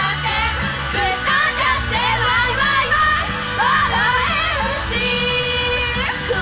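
Japanese idol pop song performed live: a woman singing over a loud backing track with a steady bass and beat, holding one long note about five seconds in.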